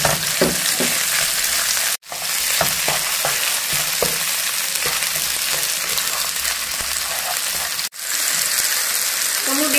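Shallots, garlic and chillies sizzling steadily in hot oil in a non-stick wok, with a wooden spatula scraping and tapping the pan as it stirs. The sound cuts out for an instant twice.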